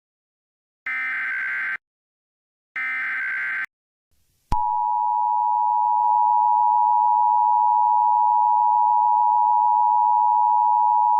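Emergency Alert System signal: the last two of three short, buzzy SAME digital header bursts, then about four and a half seconds in the EAS two-tone attention signal (853 and 960 Hz together) starts and holds steadily. It marks the start of an emergency alert broadcast.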